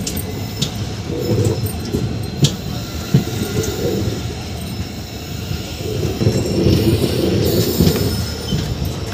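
Indian Railways express train coach running slowly into a station, heard through the open coach doorway: steady wheel-and-rail rumble with scattered sharp clicks and knocks, swelling louder a few seconds before the end.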